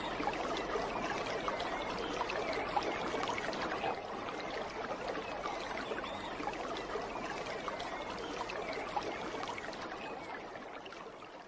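Running water with a steady trickling sound, fading out near the end.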